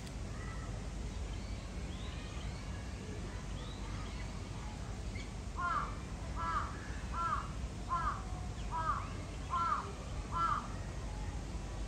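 A crow cawing: a run of about seven caws, evenly spaced a little under a second apart. Steady low outdoor background noise runs underneath, with faint small-bird chirps in the first few seconds.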